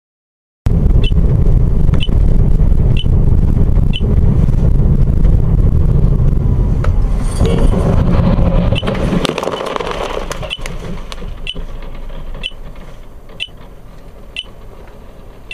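Low vehicle rumble with a short high beep about once a second. The rumble dies down over the second half, and a few clicks sound near the middle.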